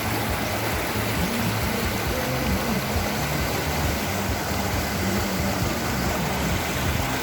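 Background music over the steady rush of flowing stream water.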